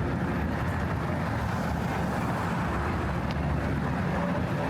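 Steady low rumble of city traffic, an even wash of noise with no single event standing out.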